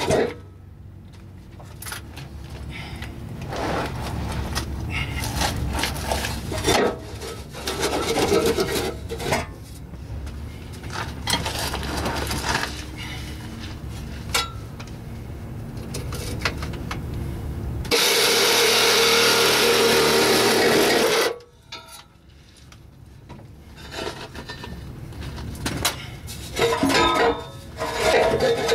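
Scraping and rasping of tools on an SUV's exhaust as it is worked loose from underneath, in irregular strokes. Past the middle, a power tool runs loud and steady for about three seconds.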